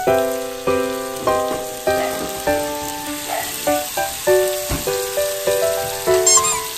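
Background music, a melody of short plucked-sounding notes, over a faint sizzle of food frying in a pan.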